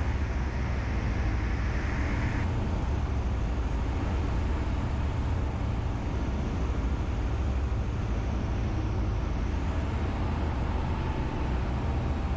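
Breezer B600's Rotax 912 engine and propeller droning steadily, heard inside the light aircraft's cockpit along with wind noise. A radio hiss cuts off about two seconds in.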